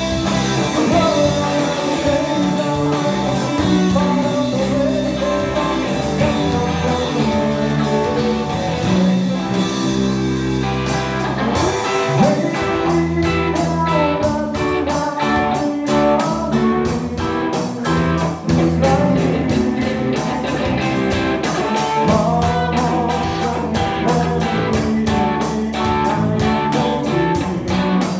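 Live band playing a bluesy rock song: electric guitar over bass and drums, with a voice singing. The cymbal beat grows busier and more regular about a third of the way through.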